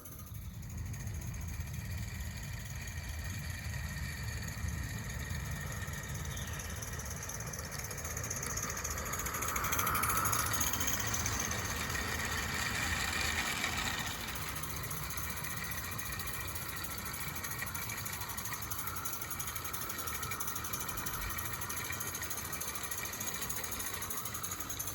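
Accucraft Cranmore Peckett 16mm-scale live steam model locomotive running on its track, with a rapid, continuous chuffing and clatter. It grows louder with a higher hiss for a few seconds midway, then settles back.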